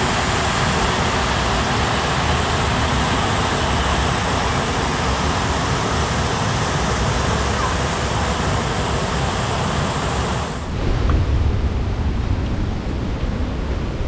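Loud, steady rush of a waterfall. About three-quarters of the way through the sound changes abruptly, losing its hiss and turning to a duller, uneven rumble.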